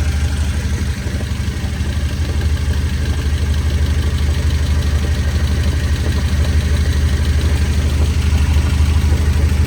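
1993 Nissan 240SX's 2.4-litre four-cylinder engine idling with a steady low drone, with minor clunking from the transmission running through it; the owner suspects worn input shaft or countershaft bearings.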